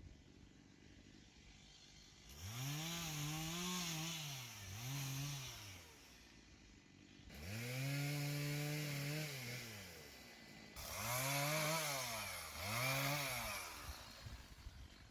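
Two-stroke chainsaw revving in five bursts, each climbing to full speed, holding briefly and dropping back. The longest burst, near the middle, holds steady for about two seconds.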